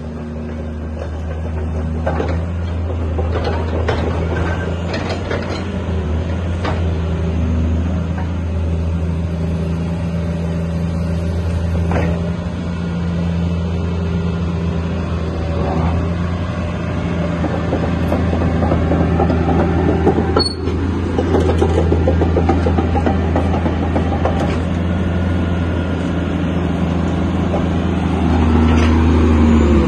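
Caterpillar 330C L excavator's diesel engine running at a steady idle. Near the end it rises in pitch and gets louder as it is revved up.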